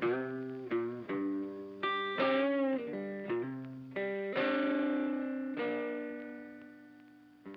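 Background music: a guitar picking notes with effects, ending on a long held chord that fades out.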